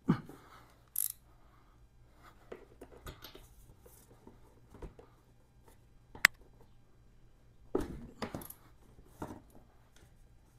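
Scattered clicks and knocks of a ratchet and socket being fitted to and worked on the final-drive drain plug of a Yamaha FJR1300, with one sharp click about six seconds in, the loudest sound.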